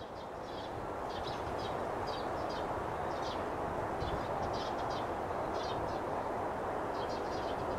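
A steady rushing noise, like outdoor ambience, with short high chirps in small clusters every half-second to a second. It swells in over the first second.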